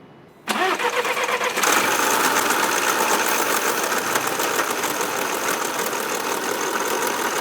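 Skoda Rapid's 1.4-litre engine running with an abnormal rattling, crackling snore from its accessory drive, coming in about half a second in and growing louder about a second later. The noise comes from the air-conditioning compressor, which has broken up inside, its clutch wobbling loose on the shaft.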